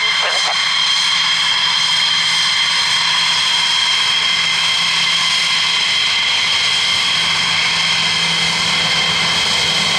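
A McDonnell Douglas F-15E Strike Eagle's twin Pratt & Whitney F100 turbofan engines running at taxi power as the jet rolls past: a loud, steady, high-pitched whine with a low hum underneath.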